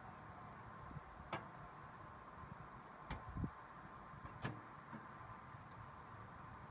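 A few light metallic knocks and clicks, four in all, as the pliers holding the quenched carbon-steel blade bump against the steel ammo-can quench tank, over a faint steady background.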